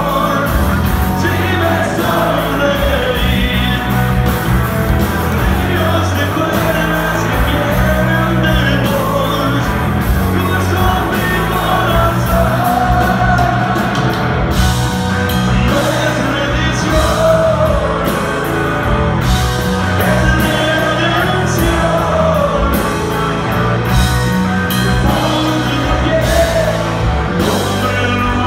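Rock trio of electric guitar, bass and drums playing live with singing, recorded from among the audience in a concert hall.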